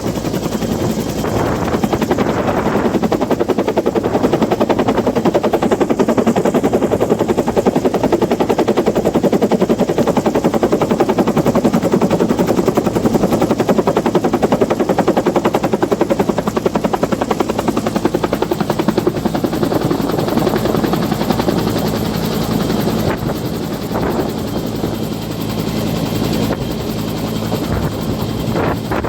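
An engine running steadily with a rapid, even throb.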